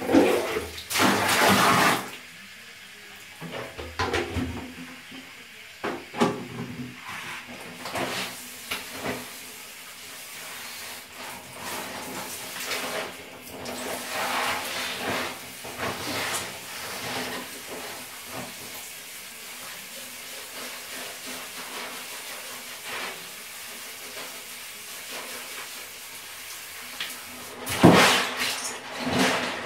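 Water sloshing and splashing in a bathtub as a batch of Lego pieces is washed, with scattered clicks and clatter of the plastic parts. Louder splashing comes in the first two seconds and again near the end.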